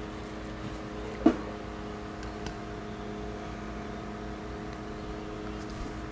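Steady machine hum made of several constant pitches, with one sharp click of small metal parts about a second in as a fuel pipe is worked into an engine's tank top.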